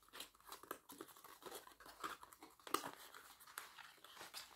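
Faint rustling, crinkling and small clicks of a perfume box's packaging being handled as the bottle is taken out of it.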